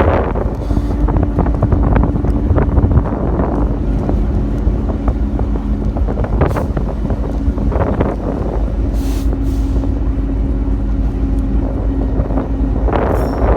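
Strong wind buffeting the microphone in a loud, gusty rumble, with a steady low hum underneath that fades in and out.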